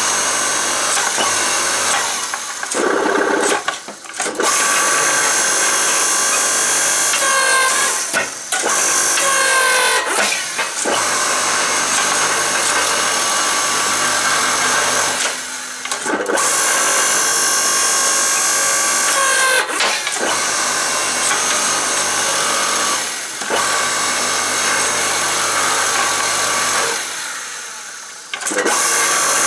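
Electric motor and hydraulic pump of a 5-ton electric log splitter, converted to a forge press, running with a steady whine while the ram squeezes hot steel bar between square dies. The sound dips briefly several times and its pitch shifts around a third of the way in.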